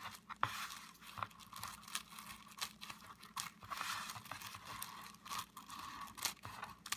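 Scissors cutting through plastic bubble wrap: irregular sharp snips and crackles as the blades go through the film, over the crinkling rustle of the sheet being handled.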